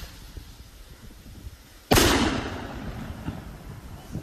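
Firework rocket bursting in the air about two seconds in: a sudden loud bang that fades away over the following two seconds, after a quieter stretch while the rocket climbs.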